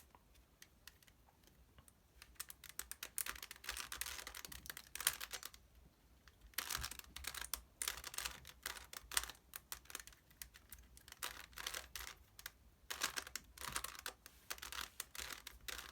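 Rubik's Cube layers being turned by hand: rapid plastic clicking and clacking in quick runs, several spurts of turning with short pauses between them.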